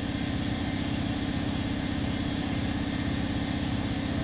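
Air compressor running, a steady low drone with a fast, even pulse.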